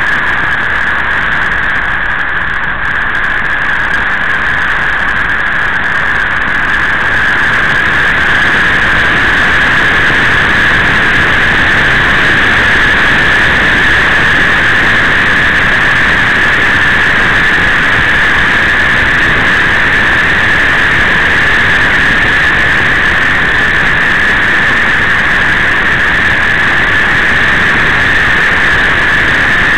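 Motorcycle riding at a steady speed: a loud, even rush of wind on the microphone, mixed with the running engine and tyre noise.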